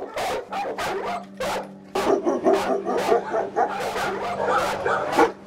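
Many dogs barking at once in shelter kennels, a dense overlapping din of barks. A steady low hum runs underneath from about half a second in.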